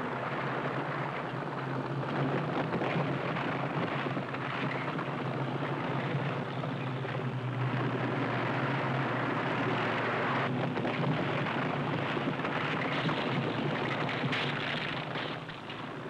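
Crawler bulldozer's diesel engine running hard under load as the blade pushes down trees and brush, a steady heavy rumble with a few sharper cracks of breaking timber about ten seconds in and again near the end.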